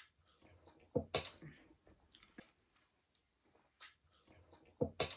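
Close-up eating sounds: chewing and wet mouth noises. A few sharp smacks and clicks stand out, the loudest about a second in and just before the end.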